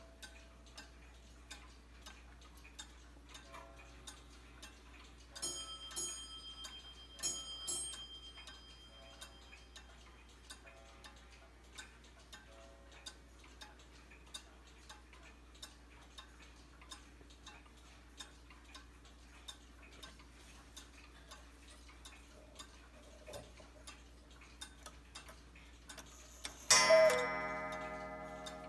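Large Black Forest cuckoo clock movement ticking steadily, with two pairs of brief ringing notes about six and seven seconds in. A loud ringing clang near the end dies away slowly.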